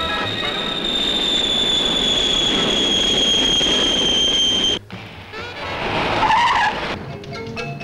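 Jet aircraft taking off: the turbojet whine of a Morane-Saulnier Fleuret trainer, a high steady tone sliding slowly down in pitch over a rush of jet noise, cut off abruptly about five seconds in. A shorter hissing sound follows, and music comes back near the end.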